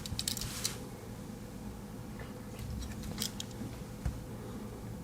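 Faint clicks and rubbing from handling a Victorinox Ranger Swiss Army knife and its tools: a quick cluster of clicks at the start, a few more around the middle, and a dull knock near the end.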